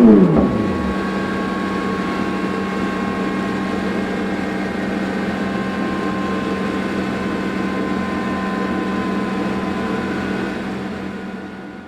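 Yamaha FZ8 Fazer's inline-four engine, breathing through a Dominator aftermarket silencer on a dyno, drops quickly from high revs at the end of a pull in the first second. It then runs steadily at low revs, fading out near the end.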